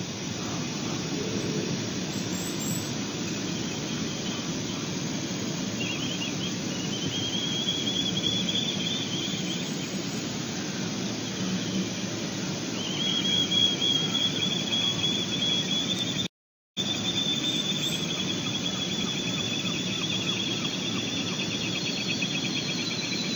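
Ospreys calling at the nest: runs of rapid, high-pitched chirping calls, a short run about six seconds in and a longer one from about thirteen seconds to near the end, over a steady rushing background noise. The sound cuts out completely for half a second in the middle.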